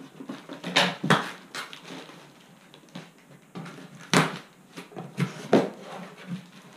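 A cardboard box being opened by hand: re-applied packing tape pulled off and the cardboard flaps pulled open, giving a run of short, sharp crackles and rustles.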